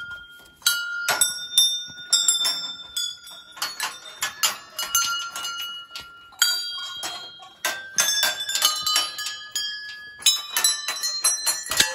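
Brass temple bells struck one after another, many strikes throughout, each clang ringing on at its own pitch so that several bells of different pitch overlap.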